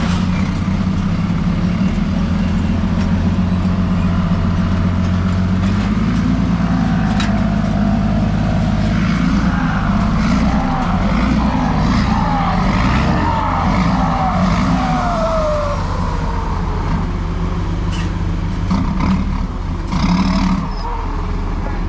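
Heavy truck engine running steadily with a deep hum. Around the middle a series of short whines slide down in pitch, and near the end there is a brief burst of noise.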